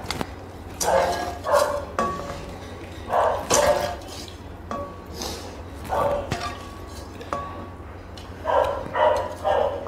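Eating sounds of instant noodles: repeated loud slurps and mouth noises, with a few light clinks of chopsticks against bowls that ring briefly.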